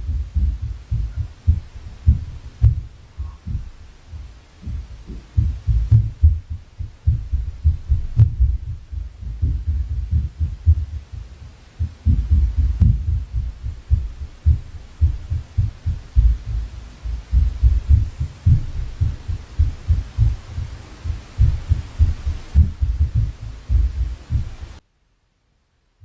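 Inter-floor impact noise from the apartment above, heard through the ceiling as dull, low thumps of footsteps and stomping, several a second and irregular. It stops abruptly near the end.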